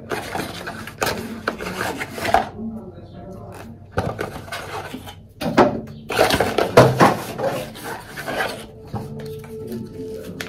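Hair-dye box and packaging being handled: rustling with scattered clicks, taps and knocks.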